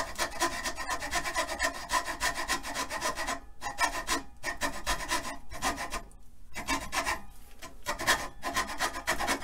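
Fine-toothed hacksaw cutting into a wooden dowel rod clamped in a vise: quick back-and-forth rasping strokes, with a few short pauses near the middle. The saw is scoring a shallow cut around the dowel to mark the drumstick tip.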